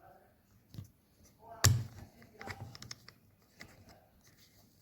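Hands fitting a phone and phone adapter onto a microscope eyepiece: scattered clicks and small knocks of plastic parts, with one sharp knock a little over a second and a half in and a quick run of clicks soon after.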